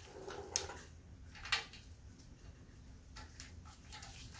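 Faint metallic clicks and taps of small steel parts being fitted by hand onto the camshaft sprocket of a Pontiac V8: the eccentric, its locating key and the retaining nut. The two clearest clicks come about half a second and a second and a half in.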